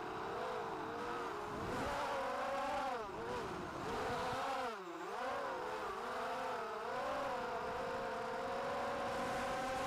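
Motor whine of a ZMR 250 racing quadcopter, four Emax 2204 2300kv brushless motors spinning Gemfan 5045 props, heard from its onboard camera. The pitch rises and falls with the throttle, dips sharply about five seconds in, then climbs back and holds.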